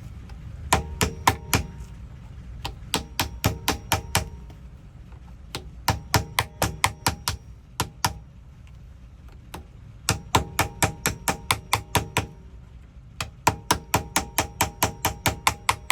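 Small hammer tapping on metal lock parts in quick runs of several light blows, each with a short metallic ring, paused between runs.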